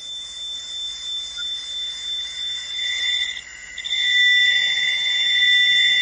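Audio rendering of the 1977 'Wow!' radio signal: two steady high whistling tones over a hiss. The tones cut out briefly about three and a half seconds in and come back louder.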